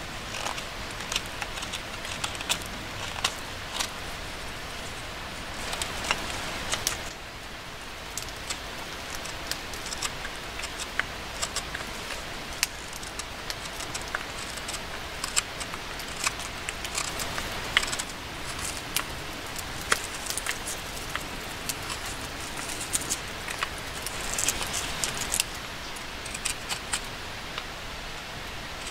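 Carving knife whittling a zelkova wooden spoon by hand: a run of short, irregular cutting clicks and scrapes as shavings come off the wood.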